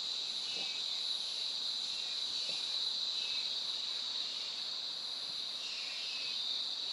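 Insects droning in a steady, high-pitched, unbroken buzz.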